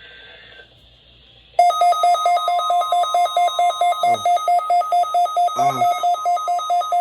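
A weather radio's alarm going off about one and a half seconds in: a loud, rapidly pulsing electronic beep, set off by the NOAA Weather Radio alarm test. Before it there is only faint radio hiss.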